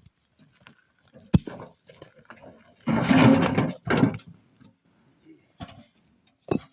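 A sharp knock, then a loud rough clatter lasting under a second, followed by a shorter one, with a few fainter knocks near the end.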